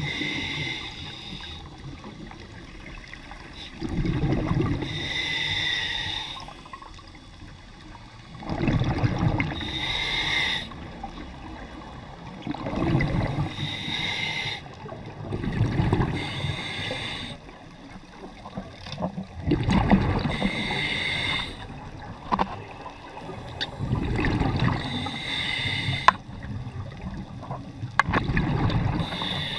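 Scuba diver breathing through a regulator underwater, one breath about every four seconds: each cycle a rumbling gush of exhaled bubbles and a hiss of air drawn through the demand valve.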